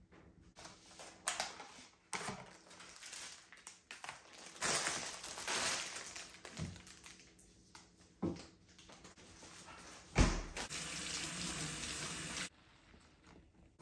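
Kitchen tap running into a stainless-steel sink for about two seconds to rinse a bunch of celery, cutting off sharply near the end. Before it come scattered knocks and rustling as plastic tubs and bags of produce are handled on the counter, then a sharp knock just before the water starts.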